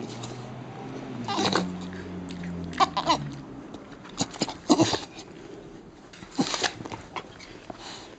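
Staffordshire bull terrier making funny vocal noises: a low, drawn-out grumbling moan over the first few seconds, then a string of short, sharp noises.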